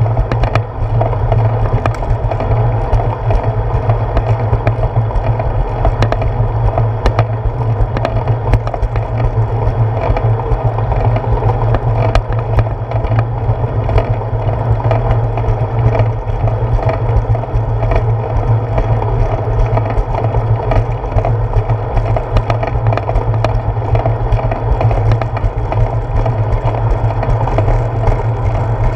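Steady rumble and rattle of a bicycle rolling along a concrete sidewalk, carried through a handlebar-mounted GoPro in its housing, with frequent sharp clicks and knocks from bumps in the path.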